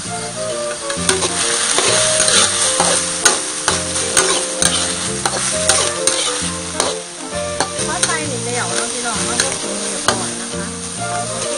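Minced pork sizzling in a hot wok while a metal spatula stirs it, scraping and clicking against the pan many times.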